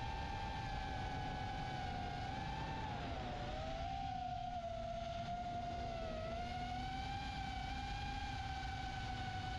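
FPV quadcopter's brushless motors and 4-inch props whining steadily, the pitch dipping briefly twice, about three and a half and six seconds in, over a low rumble.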